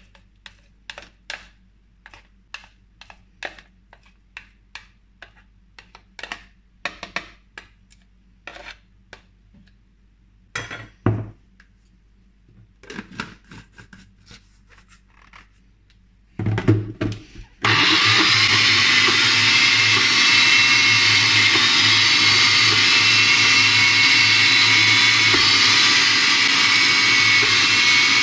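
A metal spoon scrapes and clinks against a glass jar in a long series of short strokes, followed by a couple of clunks as the cup is fitted in place. About two-thirds of the way through, the Sencor Nutri Blend 1000 W personal blender starts suddenly and runs steadily, blending a thick green paste.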